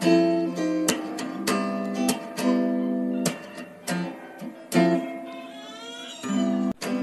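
Background music: guitar, plucked and strummed chords.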